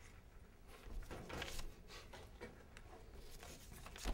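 Faint rustling of paper sticky notes being handled and laid on a paper prototype screen, with a soft knock near the end.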